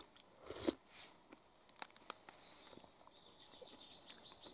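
Faint outdoor quiet broken by soft eating noises from a spoon and an opened tin can: a short louder noise about half a second in, then a few small clicks. A songbird sings a quick, repeated high phrase near the end.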